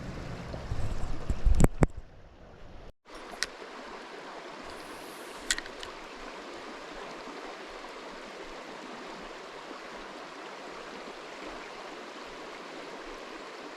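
Little River, a trout stream, running steadily over rocks. In the first two seconds there is a low rumble on the microphone with a few loud knocks, then a brief dropout.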